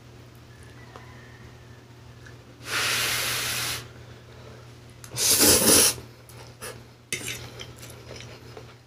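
Slurping pancit canton noodles off a fork: two loud slurps, about three seconds in and again at about five and a half seconds, the second the louder. Soft chewing and small clicks follow.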